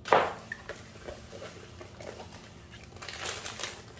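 Rolled diamond-painting canvas being unrolled and pressed flat on a table by hand: a loud crinkling rustle as it opens, a few light taps and rustles, then another rustle about three seconds in.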